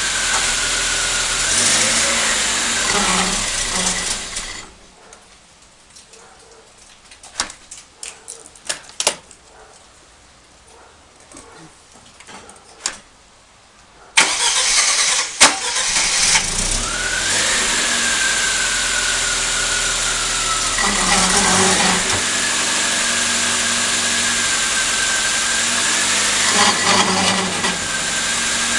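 Lada classic's engine running in first gear and turning the rear wheel hub on the raised car, with a whine that rises and falls. The engine stops about four and a half seconds in; a few clicks and knocks follow. Around the middle it starts again and runs to the end, with the whine dipping and swelling a few times as the brake is applied to break the seized drum free.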